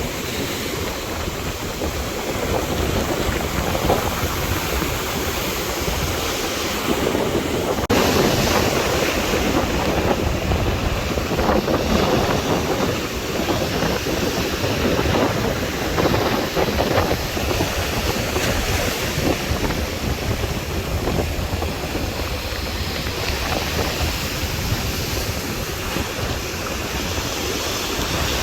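Sea waves washing ashore in a steady, continuous surf, rising and falling in slow swells, with some wind buffeting the microphone.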